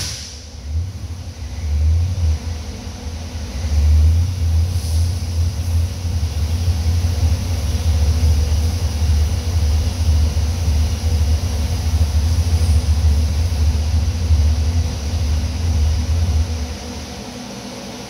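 Billet SMX V8 with a ProCharger centrifugal supercharger idling with an uneven low rumble on the engine dyno right after a full-throttle pull, then cutting off about a second before the end.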